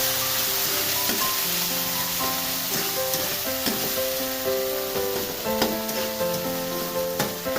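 Canned corned beef frying in hot oil with onion and garlic, a steady sizzle with a few sharp clicks from stirring in the pan. Background music with a simple melody plays over it.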